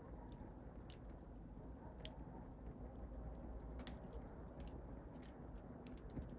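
Wood fire burning in a fireplace: a faint steady hiss and rumble of the flames, with irregular sharp crackles and pops from the burning wood.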